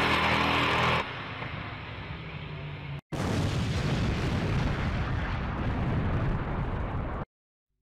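Intro sound effect under a title card: a loud, steady noise heavy in the low end, starting after a brief dropout about three seconds in and cutting off suddenly near the end. Before the dropout, a quieter noise carries on from the preceding clip.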